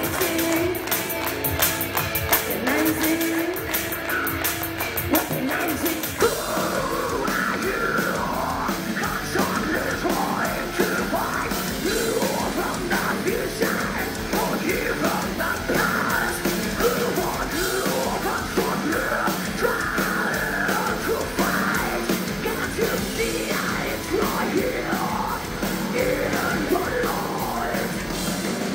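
Heavy metal band playing live at full volume: distorted guitars, drums and a woman's lead vocal, sung and yelled into a microphone. The drums beat evenly and fast in the first few seconds, and the sound thickens with the vocal about six seconds in.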